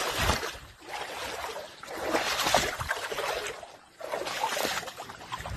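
Rushing noise from a phone recording of a rain-flooded tent camp, swelling and fading about four times: wind on the phone's microphone over water.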